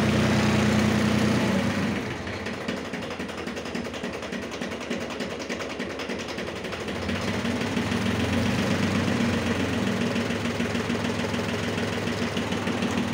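Yanmar YM1820 compact tractor's diesel engine idling steadily. It dips in level about two seconds in and comes back up about seven seconds in.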